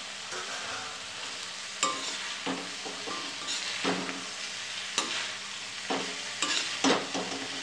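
Metal spatula scraping and clinking against a metal kadai as fried idli pieces are tossed through onion, capsicum and sauce, over a steady sizzle of frying. The strokes come unevenly, about once or twice a second.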